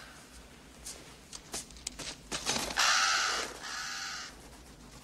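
A crow cawing twice about three seconds in, a loud rough caw followed by a softer one, after a few faint taps.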